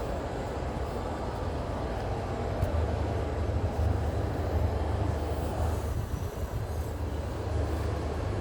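Steady low rumble under an even noise, like a vehicle running, growing a little stronger from about two and a half seconds in.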